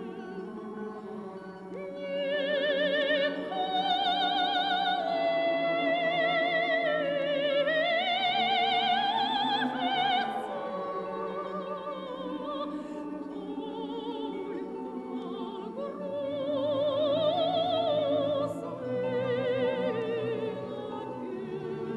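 Operatic singing with strong vibrato over orchestral accompaniment: long held notes, swelling about two seconds in and again near the end.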